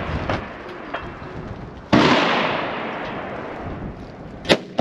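A single precision rifle shot about two seconds in, its report echoing and fading over the next two seconds, then a short sharp crack near the end.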